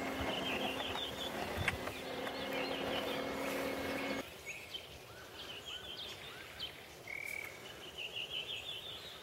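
Electric food processor running with its shredding disc grating carrots, a steady motor hum that cuts off about four seconds in. Small birds chirp and trill throughout.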